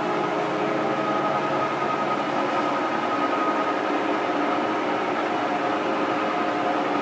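28-inch American Pacemaker engine lathe running under power, a steady mechanical hum with a high, even whine from its geared headstock and motor.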